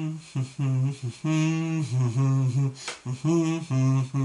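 A man humming a wordless tune in a low voice, in short held notes with brief breaks between phrases.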